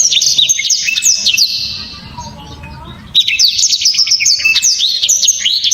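Blackthroat (black-throated canary) singing loud, rapid, tightly packed song phrases of sharp chirps and trills, in two long bursts with a quieter pause of about a second and a half between them.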